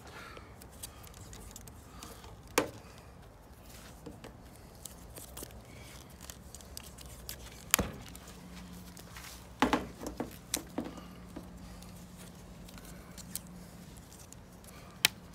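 Hands handling a roll of electrical tape and a bamboo pole: a handful of sharp clicks and taps spread out, with a faint low hum through the second half.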